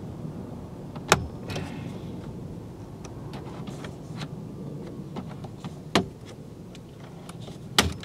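Plastic retaining clips of a car's centre-dash trim bezel snapping loose as it is pried off with a plastic panel tool: three sharp clicks, about a second in, about six seconds in and just before the end, with a few fainter ticks between, over a low steady hum.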